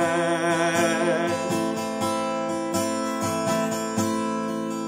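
Steel-string acoustic guitar strummed in steady chords between sung lines. A man's held sung note with vibrato dies away about a second in.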